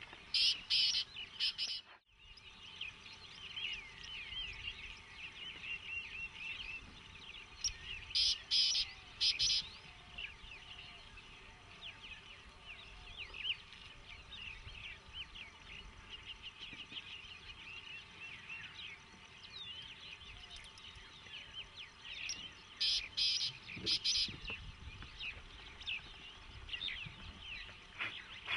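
Many birds chirping and calling in a steady chorus. Three times a louder, higher call of four or five quick sharp notes stands out: at the start, about a third of the way in, and again toward the end. The sound drops out briefly about two seconds in.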